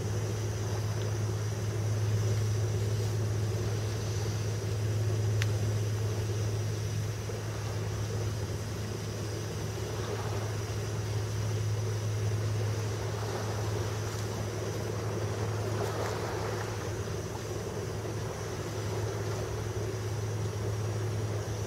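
Steady low engine drone that holds level throughout, with faint rustling of gear being handled about halfway through and again a few seconds later.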